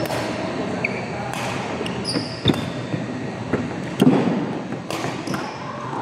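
Badminton rally: sharp racket strikes on the shuttlecock about once a second, with brief high squeaks of sneakers on the court floor.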